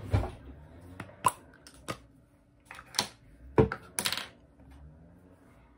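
Small makeup items being handled: a string of sharp clicks and knocks of hard plastic pieces being picked up and set down. The loudest knock comes about three and a half seconds in and is followed by a short rustle.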